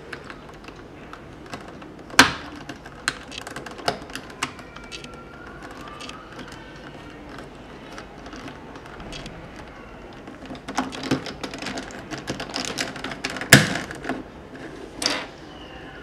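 Plastic Rubik's Cube pieces clicking and tapping as edge pieces are pushed and snapped into the partly rebuilt cube. The clicks come irregularly, with a sharp snap about two seconds in and a dense run of clicks near the end that holds the loudest snap.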